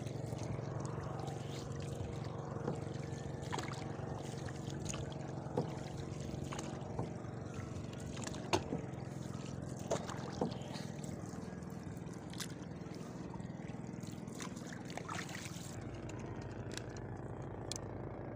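Small boat's engine running steadily, with water trickling and a few sharp clicks along the way.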